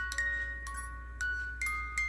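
Snow globe music box playing its tune as it is tested after installation: separate plucked, ringing metal notes, about two a second, each dying away slowly.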